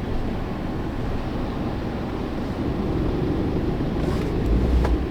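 Steady low rumble of a running car heard from inside the cabin, with a few faint clicks near the end.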